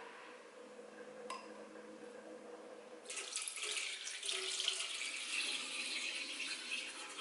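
Soy-sauce marinade poured from a glass container through a stainless steel mesh strainer into a saucepan: a steady splashing trickle that starts about three seconds in. A single light click comes about a second in.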